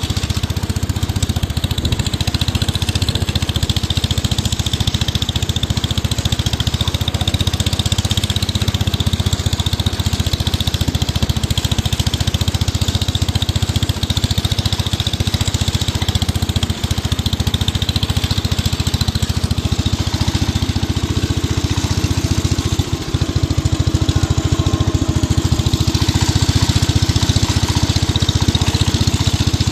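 Wheel Horse 245 garden tractor's engine running steadily, getting its spark through a temporary jumper wire to the ignition. It gets a little louder about two-thirds of the way through.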